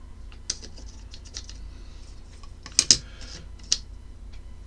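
Small clicks and taps of a magnetic-base reballing jig and its metal stencil being handled. The loudest are two sharp clicks close together about three seconds in, then another a little later.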